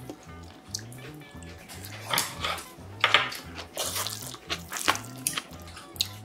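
Wet squelching and scraping as a wooden spoon mixes bibimbap rice in a metal bowl, in a few louder bursts, over background music with a steady beat.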